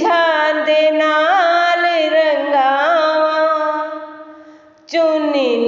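A singing voice in a Punjabi devotional shabad, holding one long ornamented note that fades away about four seconds in, then starting a new phrase near the end.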